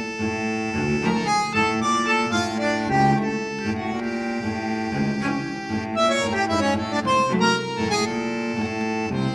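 Background music with reedy, accordion- or harmonica-like melody lines over a steady bass.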